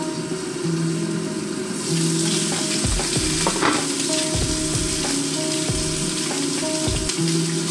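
Hot oil frying and sizzling in a pan on the stove, the hiss swelling about two seconds in, with a few low knocks from the pan being handled.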